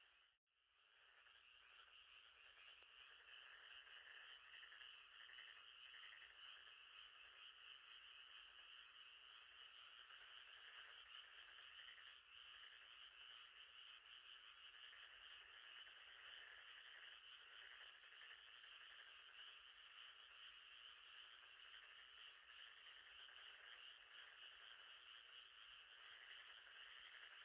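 Faint, steady night chorus of frogs, many calls blending into a continuous trilling din. It drops out briefly about half a second in.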